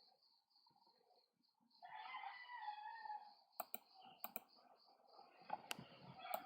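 Faint computer mouse clicks over near silence: two quick pairs of clicks around the middle and a single click near the end.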